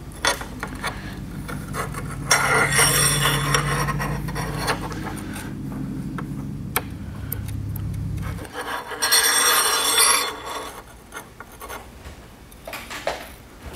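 Adhesive trim being fitted to a wing riser by hand: backing film peeled off and the piece rubbed down. Two spells of crackling, rubbing noise with small clicks and taps between them, over a low hum that cuts off about two-thirds of the way through.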